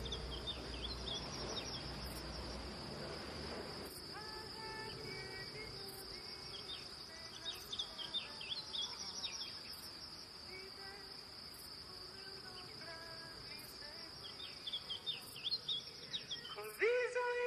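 Crickets chirring steadily in a grassy field, with scattered short bird chirps. Music with a singing voice comes in near the end.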